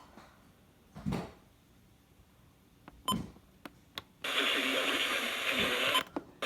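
Radio broadcast in a pause: mostly low background with a few faint clicks and thumps, then about two seconds of steady radio hiss starting about four seconds in, which cuts off sharply.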